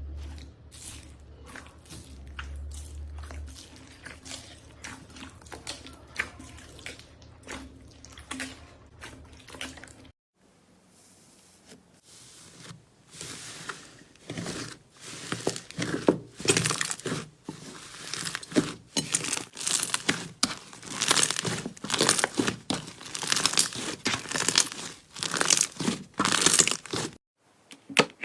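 Slime being squeezed and pressed by hand, making quick crackles and pops. There is a short break about ten seconds in, after which come louder, repeated crunching squeezes.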